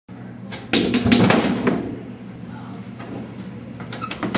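Drink vending machine dispensing a plastic bottle: the bottle drops and clatters into the delivery bin about half a second in, over a steady low hum. Near the end come a few clicks and a knock as the bottle is pulled out through the bin's flap.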